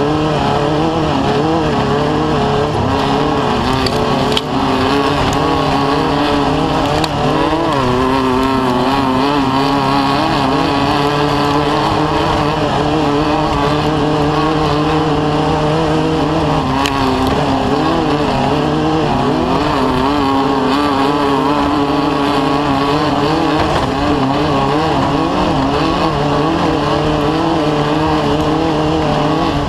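Off-road race vehicle's engine running hard, its revs rising and falling constantly, with a few brief knocks.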